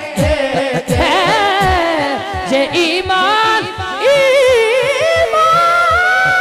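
A man singing a naat solo into a microphone: long, drawn-out melismatic phrases with a wavering pitch. Under the voice runs a steady low beat of about three pulses a second.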